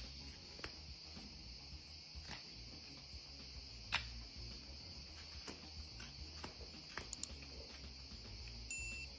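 Scattered faint clicks and scrapes of farrier tools working a horse's hoof, one sharper click about four seconds in, over a steady high hiss.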